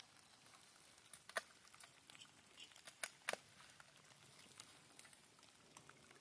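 Near silence with scattered faint ticks of raindrops pattering, a few of them a little louder about one and a half and three seconds in.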